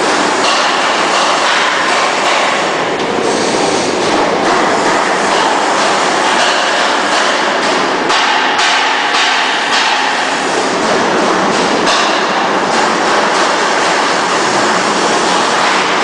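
Citrus sorting and sizing machine running, with fruit rolling and knocking over a metal roller conveyor and through perforated drum sizers, making a steady mechanical clatter with scattered clicks.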